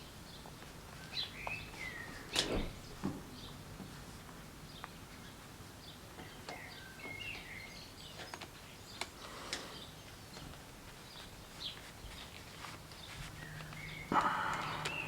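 Small birds chirping intermittently in quiet ambience, with a few sharp clicks. A brief louder rushing noise comes near the end.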